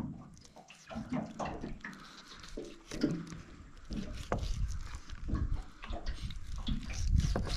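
A knife skinning a wet scorpion fish fillet, with irregular soft scrapes and taps of the blade and the flesh being handled.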